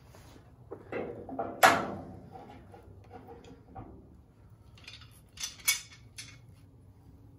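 Hand tools clinking and knocking as big channel-lock pliers and a wood block are set against a metal car door sill: one sharp, ringing metal clank about one and a half seconds in, then a couple of quick metallic clicks a little after five seconds.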